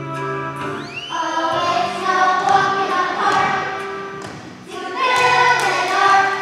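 Children's choir singing a song over a recorded musical accompaniment. The voices come in about a second in, after held instrumental notes, in two loud phrases.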